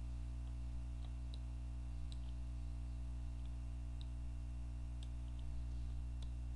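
Scattered, irregular computer mouse clicks, small and sharp, about ten of them, over a steady low electrical hum.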